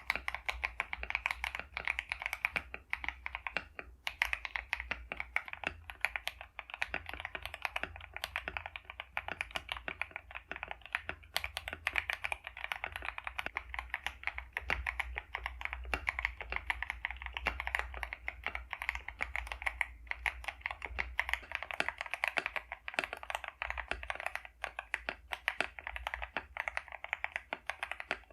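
Steady, continuous typing on a mechanical keyboard fitted with lubed Akko switches: a dense run of keystroke clicks and clacks with no pauses.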